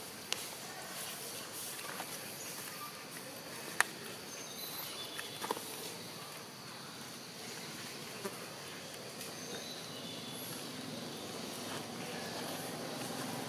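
Outdoor ambience: a steady hum of insects, with scattered short high chirps and a few sharp clicks, the loudest about four seconds in.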